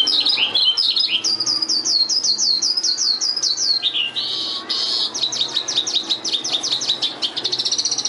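Oriental skylark singing: a rapid series of high, down-sliding notes, a brief buzzy note about four seconds in, then a quicker run of repeated notes.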